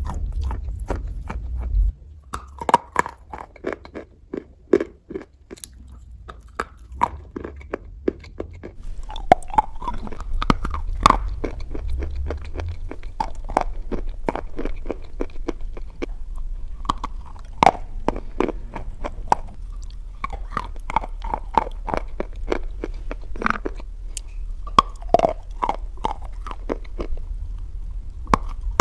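Close-up crunching and chewing of slate pencils: many sharp, irregular crunches and crackles as the brittle sticks are bitten and ground between the teeth. A steady low hum sits underneath for most of it.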